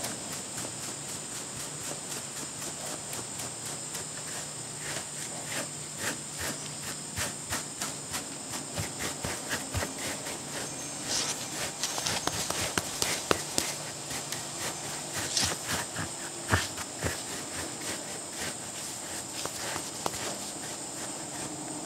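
Kong rubber grooming brush stroked over a short-haired dog's coat: repeated scratchy brushing strokes, two to three a second, quickest and loudest about halfway through. A steady high-pitched whine sits behind them.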